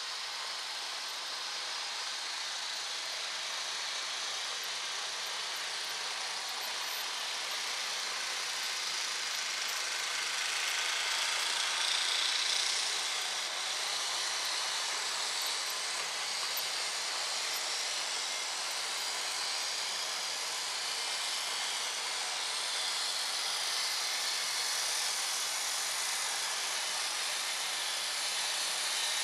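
Model railway freight train running along the track: a steady whirr of the locomotive's small electric motor and the rolling of the wagons' wheels over the rails, loudest about twelve seconds in as the wagons pass closest.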